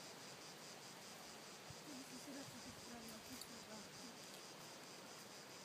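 Near silence: a faint, steady, high-pitched chirring of insects, with a faint distant voice about two seconds in.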